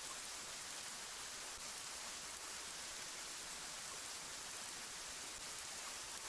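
A steady, even hiss with no distinct events, like rain or rushing water.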